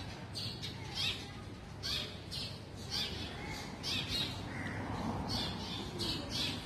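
Small birds chirping, short high calls repeating about twice a second.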